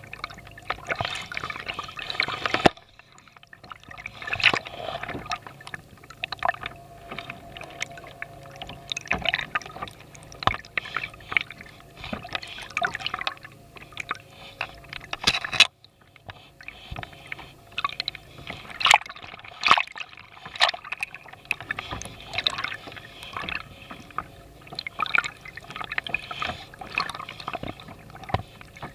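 Water sloshing and gurgling against a kayak hull, heard through an underwater camera housing, with an irregular crackle of clicks and pops. The sound drops out briefly twice.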